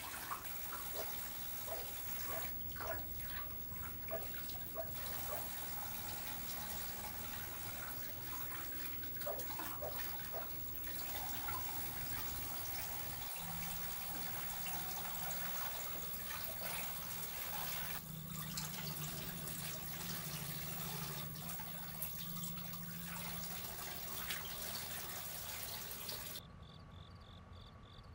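Water running and splashing. About two seconds before the end it gives way to crickets chirping steadily.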